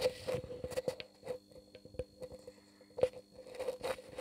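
36-watt T8 fluorescent tube fixture humming steadily, picked up at close range, with many irregular sharp clicks and crackles over the hum.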